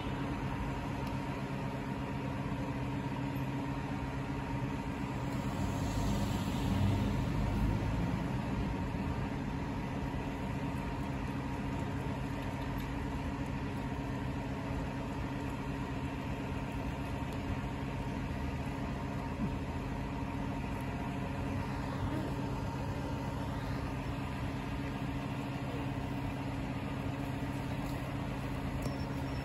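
Muni articulated city bus standing stopped and idling: a steady hum and drone with several constant low tones and one higher tone, swelling briefly a few seconds in.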